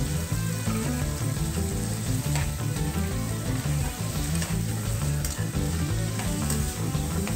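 Chopped onion and carrot sizzling in hot oil in a steel kadai while a slotted steel spoon stirs them, with a few faint scrapes of the spoon on the pan. Background music with a low bass line plays underneath.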